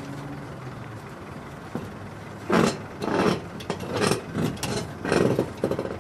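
Catamaran hull being shifted on its boat trailer: a run of about six short, loud scraping and creaking noises over some three seconds, starting about two and a half seconds in.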